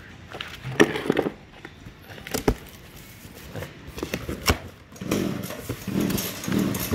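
Cardboard box being handled and opened: a few sharp knocks and taps on the carton, then from about five seconds in a longer noisy tearing as the packing tape is ripped and the flaps pulled open.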